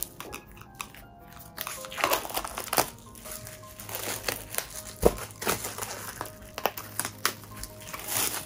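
Clear plastic shrink-wrap crinkling and crackling as it is peeled by hand off a large photo book, with the sharpest crackle about five seconds in. Background music plays underneath.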